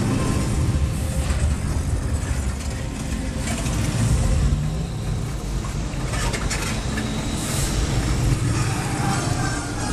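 Indiana Jones Adventure jeep-styled ride vehicle (Enhanced Motion Vehicle) rumbling as it travels along the ride track, with a low, steady rumble throughout.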